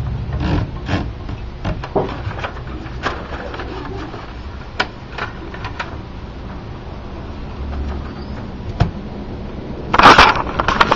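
LC Smith typewriter keys struck one at a time at a slow, irregular pace, each a sharp clack. A louder, longer clatter comes about ten seconds in.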